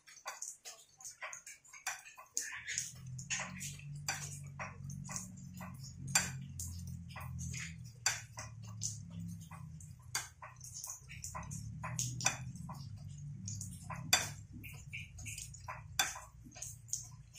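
Metal spoon clinking and scraping against a ceramic plate while instant noodles are stirred, in many irregular short clicks. A low steady hum comes in about two and a half seconds in.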